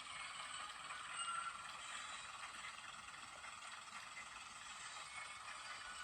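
Faint running noise of a sound-fitted Graham Farish Class 101 N gauge DMU model moving along the track: a light, steady mechanical rattle and hiss, with a brief faint high tone about a second in.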